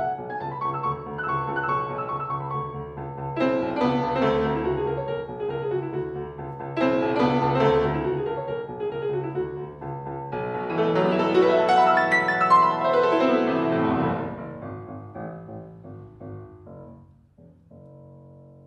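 Solo grand piano playing a classical piece in phrases that grow to the loudest passage about twelve seconds in, then thin out and end on a held chord that rings and fades.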